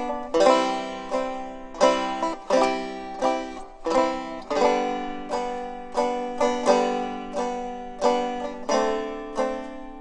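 Background music: a plucked string instrument playing a tune, each note sharply struck and quickly dying away, two to three notes a second.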